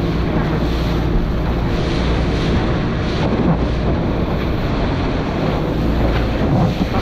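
Wind buffeting the microphone over steady rushing water from a boat under way.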